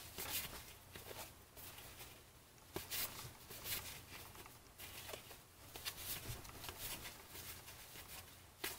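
Faint soft flicks and rustles of 1990 Fleer football trading cards being flipped through by hand at an irregular pace, over a steady low hum.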